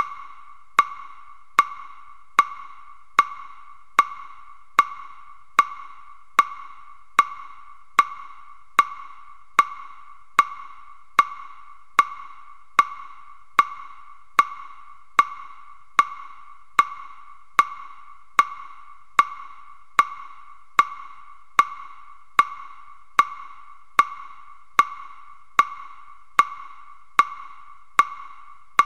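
A wooden fish (muyu) struck at a slow, perfectly even tempo, about five strikes every four seconds, each a short hollow knock of the same pitch and loudness. The beat paces sutra recitation at one character per strike.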